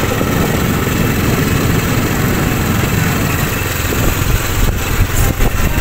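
Small motorcycle engine running steadily while it pulls a sidecar cart along a dirt road, mixed with the rumble of wind and road noise.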